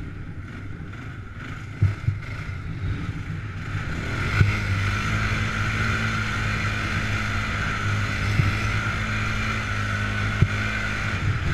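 Polaris Sportsman 500 H.O. ATV's single-cylinder four-stroke engine running under way. It gets louder at about four seconds in and then holds one steady pitch, with wind noise on the helmet microphone and a few short, sharp knocks.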